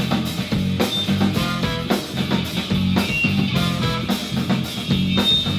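Live band music with no vocals: drum kit keeping a steady beat under guitar and bass.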